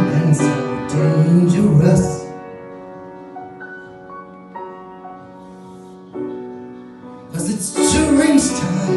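Instrumental music from the song's accompaniment: a full passage that thins out after about two seconds to quiet sustained keyboard notes, with the full arrangement coming back in near the end.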